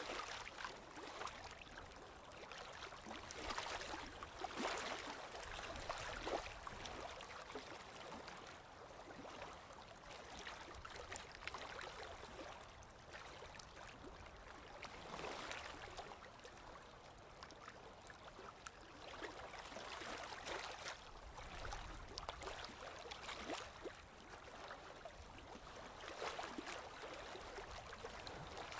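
Flowing water splashing unevenly, swelling and easing every few seconds, with small sharp splashes and drips through it.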